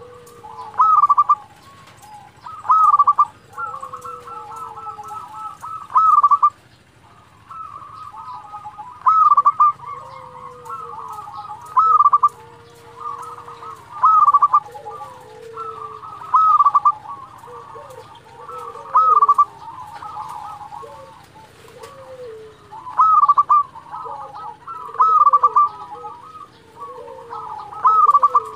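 Zebra dove (perkutut) singing its cooing song in full voice. Loud rolling phrases come every two to three seconds, with lower falling coos between them.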